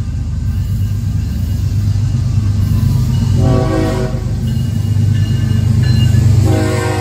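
Diesel locomotive approaching a grade crossing, its deep engine rumble growing louder. It sounds its horn: a blast of about a second some three and a half seconds in, then another starting near the end, the standard warning for the crossing.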